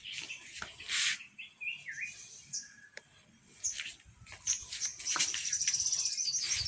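Birds chirping: short gliding calls early on, then a fast, high, rapidly repeated trill over the last two seconds, with a brief rush of noise about a second in.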